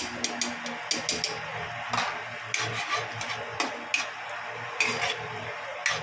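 A metal spatula scraping and clinking against a metal kadhai while stirring a thick sauce, with irregular sharp clicks every second or so.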